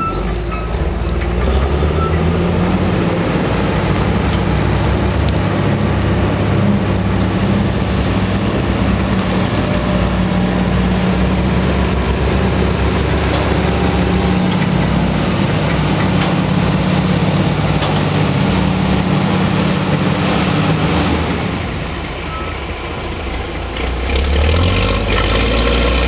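Manitowoc 4600 dragline's engine running steadily under load while the bucket works in rock. It eases off for a couple of seconds near the end, then picks up again.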